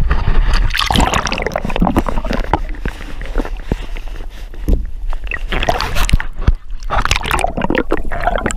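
Sea water sloshing and gurgling around a hand-held action camera dipped in and out at the surface, with many short irregular splashes against the camera.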